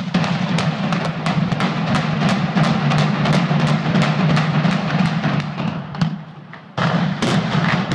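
Explosive demolition charges for a building implosion going off in a rapid string of sharp bangs, several a second, over a low rumble. There is a short break about six seconds in, then the bangs start again.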